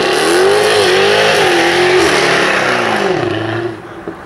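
Car engine revved hard and held high, the revs wavering up and down, then falling away and dropping off about three and a half seconds in.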